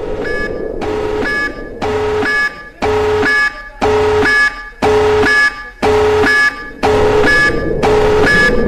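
Electronic warning siren sounding a pulsed pattern of steady tones, about one pulse a second.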